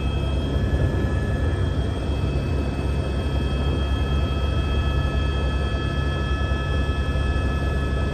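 Helicopter engine and rotor heard from aboard: a steady low drone with several high, steady whine tones held over it.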